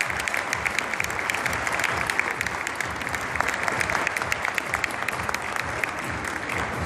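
Large audience applauding steadily for an award winner, many hands clapping.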